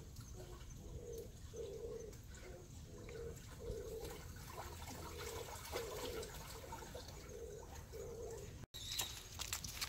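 A dove cooing over and over, a soft low note about every two-thirds of a second, over a faint low rush of water from the turning water wheel. Near the end a small bird chirps.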